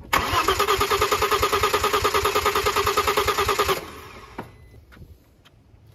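Starter cranking the 2004 Audi Allroad's 2.7-litre twin-turbo V6 for a compression test, with the fuel pump disabled so it does not fire: an even, quick chug of compression strokes for about three and a half seconds, then it stops abruptly. A faint click follows.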